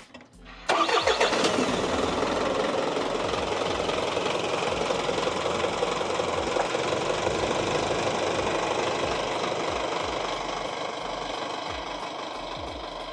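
Isuzu Elf truck's engine starting about a second in, then running steadily, getting somewhat quieter near the end.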